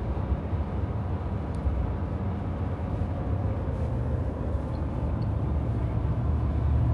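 Steady low rumble of engine and tyre noise, heard from inside a truck's cab while driving on the highway.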